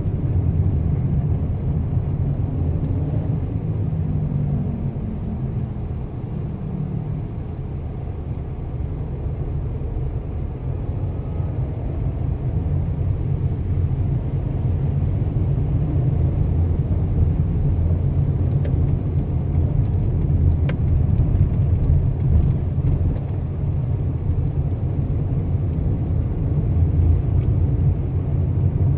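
Car driving on a city road: steady low engine and tyre rumble, with a low tone that slowly falls in pitch over the first several seconds. A run of faint ticks comes about two-thirds of the way through.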